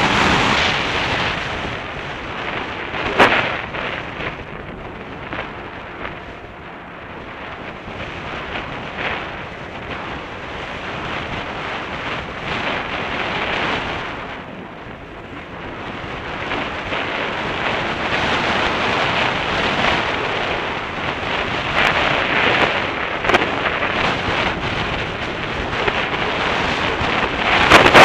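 Onboard motorcycle riding noise on a dirt track: wind rushing over the camera microphone, mixed with engine and tyre noise, swelling and easing with speed. There is a sharp knock about three seconds in.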